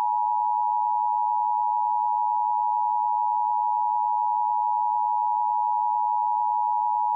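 Emergency Alert System attention signal: the two-tone 853 Hz and 960 Hz alert tone held steady at an even level, announcing the Required Monthly Test.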